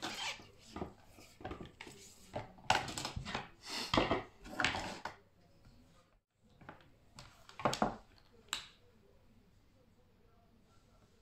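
Hand-handling noise of a rubber-sheathed cable on a tabletop: irregular rubbing and scraping as the outer sheath is worked off the cores. After a short break come a few sharp clicks of metal wire-stripping pliers being picked up and set to the wires, then it goes quiet after about nine seconds.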